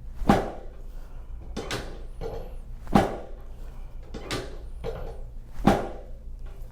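Chiropractic treatment table knocking sharply three times, about two and a half seconds apart, each loud thump preceded by a softer knock, as adjusting thrusts are delivered to a patient lying face down.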